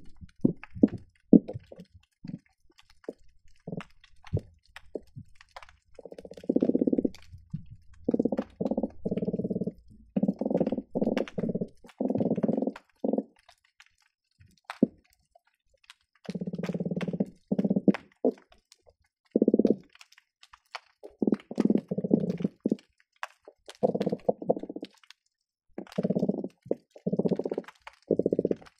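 Croakers calling underwater, heard through a hydrophone: low croaks, each a rapid run of pulses lasting from a fraction of a second to about a second, coming in irregular groups. Short clicks and pops are scattered in between.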